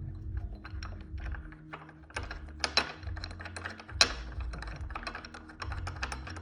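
Irregular light metal clicks and ticks from a steel bolt being threaded by hand into a freshly re-tapped 5/16-18 thread, with one sharper click about four seconds in; the thread runs without binding.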